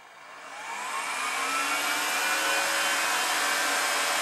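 Webasto Air Top Evo 40 diesel air heater's blower fan, run in a component test at a commanded 5000 rpm. It spins up with a rising whine from about half a second in and settles to a steady whir.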